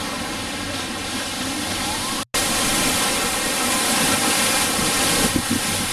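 Rough, muddy surf churning and breaking in a steady rush. It cuts out for an instant about two seconds in, then carries on a little louder.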